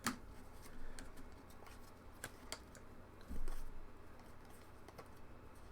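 Faint, scattered clicks and light handling noises of trading cards and packs being sorted by hand, with a soft low thump about three seconds in.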